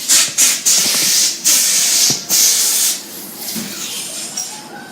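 About five short, loud bursts of hissing noise in the first three seconds, then a fainter steady hiss.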